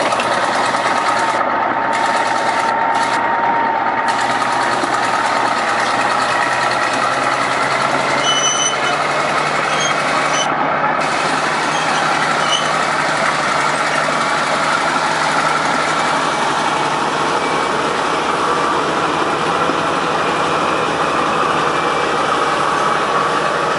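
Heavy diesel construction machinery running steadily.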